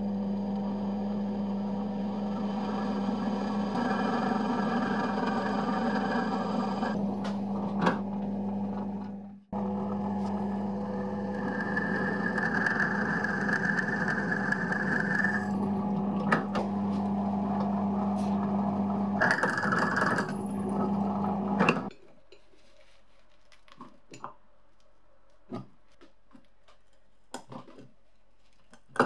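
Bench drill press motor running as the bit cuts into the cast-iron sole plate of an antique clothes iron: a steady hum with a higher squeal from the bit at times. It stops about 22 seconds in, followed by faint light clicks of metal parts being handled.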